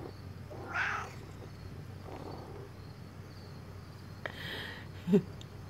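Pet cats making a few short, faint vocal sounds, with one brief, louder low chirp near the end, over a steady low hum.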